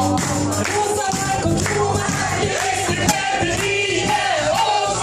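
Live unplugged band performance: a sung melody with vibrato over steady acoustic accompaniment, with crowd voices in the background.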